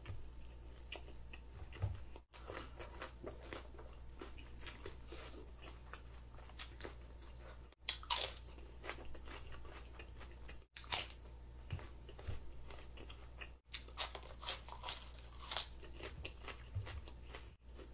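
Close-miked ASMR eating: crunchy bites and chewing of raw food, with a loud crunching bite into a raw apple about eight seconds in. The sound drops out for an instant five times where the footage is cut.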